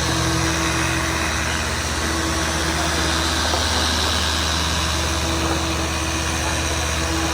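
Machine sanders running steadily while wet sanding car paint: a constant hum over an even hiss.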